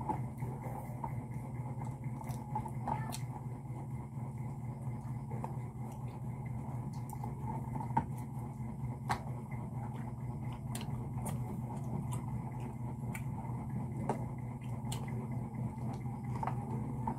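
Scattered light clicks and taps of a meal being eaten: a spoon and fingers against plates and bowls, over a steady low hum.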